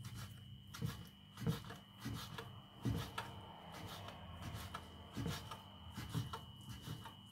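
A small kitchen knife cutting fried bacon on a wooden cutting board, a run of irregular short chopping clicks as the blade goes through the bacon and strikes the board.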